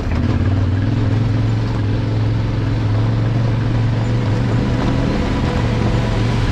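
Yamaha Ténéré 700 parallel-twin motorcycle engine running at a steady pitch while riding.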